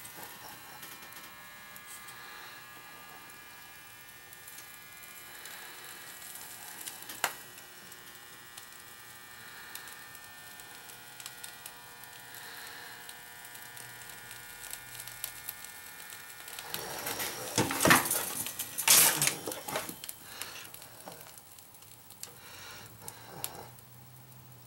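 Toaster switched on with its heating elements warming up: a faint, steady electrical whine made of several high tones. A single sharp click comes about seven seconds in, and a louder burst of rustling noise comes about three-quarters of the way through.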